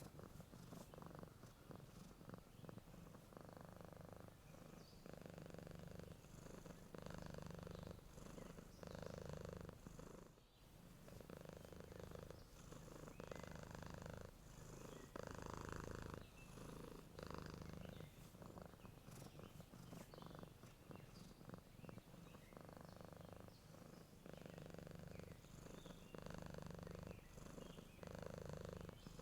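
Domestic cat purring quietly and steadily while asleep, the rumble swelling and easing with each breath in and out.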